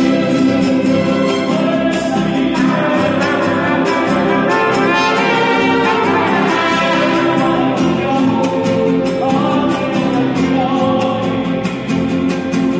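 Mariachi band playing: trumpets and violins carry the melody over a steady strummed rhythm from guitarrón, vihuela and guitar.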